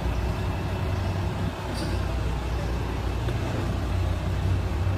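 Truck engine running steadily, a low even hum, driving the hydraulic pump through its power take-off as the trailer's platform is lowered. The hum dips briefly about a second and a half in.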